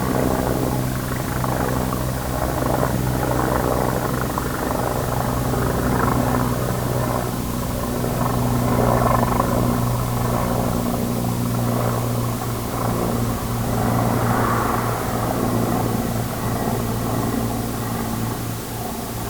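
Helicopter's engine and rotor running steadily.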